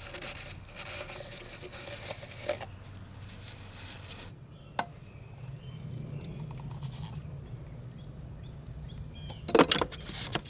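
Handling noises while working on the car: rustling, two sharp clicks, then a short clatter near the end, the loudest sound.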